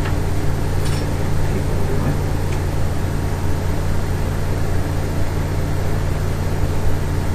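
Westinghouse Portatape reel-to-reel tape recorder running in its 7.5 speed, its motor, flywheel and belts turning with a steady low hum. A faint click comes about a second in.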